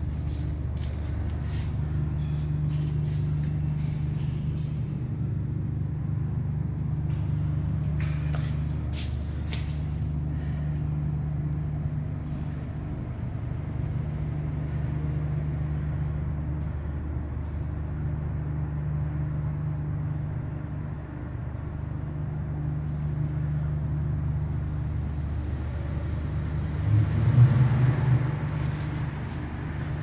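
A steady low mechanical hum with a droning tone that drops out and returns several times, a few sharp clicks about eight to ten seconds in, and a louder swell near the end.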